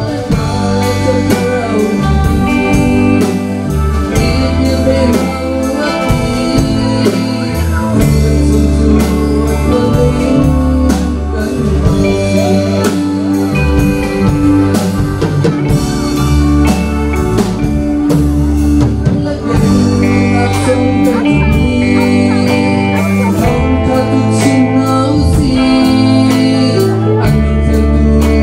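A live church band playing a gospel song: a man singing into a microphone over electric guitar, bass guitar and drum kit.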